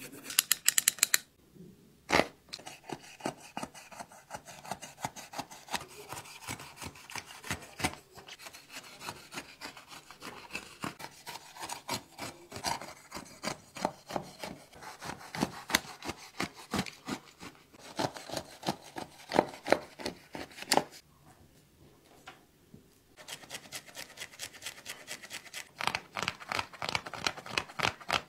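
Hands handling and cutting apart an Adidas Yeezy Boost 350 V2. The knit upper and foam rub and scrape, and a blade cuts where the upper meets the Boost midsole, with many irregular small clicks. There is a fast run of sharp clicks about a second in, and a brief lull about three-quarters through.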